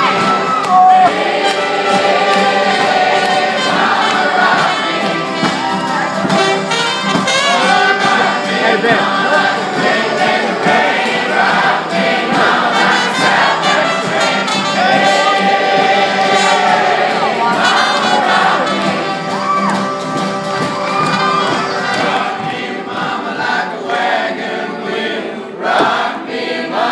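Live acoustic band with accordion, acoustic guitars, dobro, banjos and a trumpet and trombone, with many voices singing together over crowd noise.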